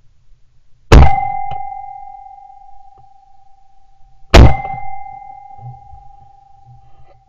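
Two shotgun shots at a flying woodpigeon, about a second in and three and a half seconds later. Each shot leaves a steady ringing tone hanging on for a few seconds as it fades.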